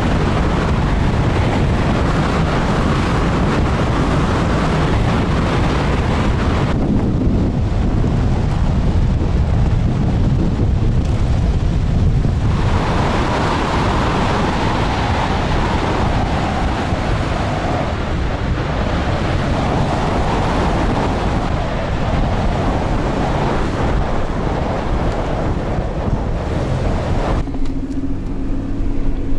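Off-road vehicle driving on a rough sandy dirt track: engine and tyre noise with wind rushing over the microphone, changing abruptly a few times. Near the end it becomes a steadier engine hum heard from inside the cabin.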